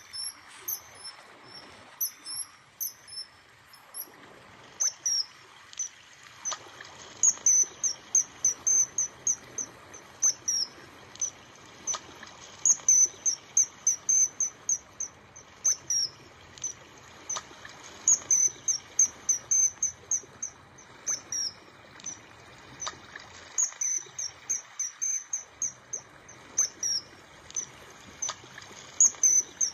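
Rapid runs of short, high-pitched chirps, several a second, coming in bursts separated by short pauses, over a faint steady hiss.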